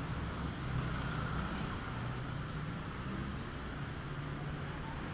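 Street traffic noise: a steady low rumble of vehicle engines and tyres.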